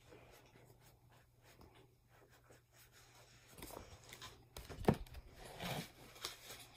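Faint rustling and scraping of a picture book's paper pages being turned and handled, with a sharper knock about five seconds in.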